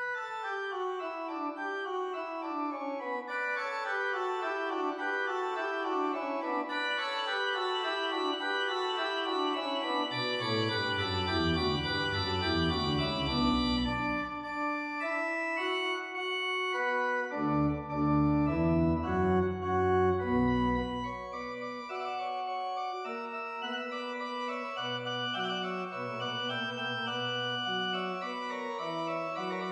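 Organ music: chords of held notes stepping steadily downward, with deep bass pedal notes joining about ten seconds in.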